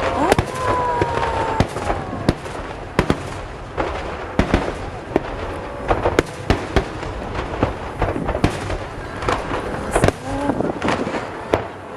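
Aerial fireworks shells bursting in quick, irregular succession: dozens of sharp bangs, with a few whistles gliding in pitch among them.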